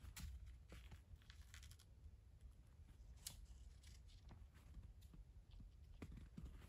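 Near silence, with faint, scattered cracks and taps of wooden poles being handled and set against a lean-to pole frame; one sharper crack about three seconds in.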